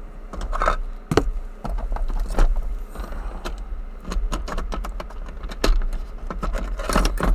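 Small metal tools and the lock being handled: scattered clicks, taps and light rattling over a low handling rumble.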